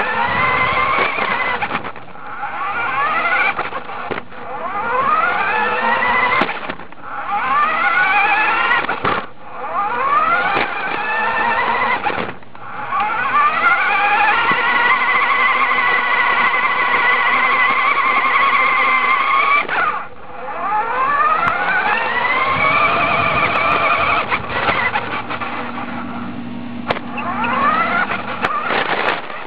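Remote-control truck's motor and gears whining from the truck's own camera mount, rising in pitch each time it speeds off. It runs in repeated short spurts with brief stops, and holds one long steady run of about seven seconds midway.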